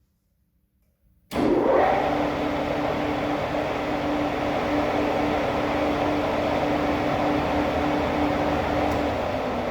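Metal lathe running at a steady spindle speed, a steady whine from the drive over mechanical noise, starting abruptly about a second in after near silence; the whine drops out shortly before the end.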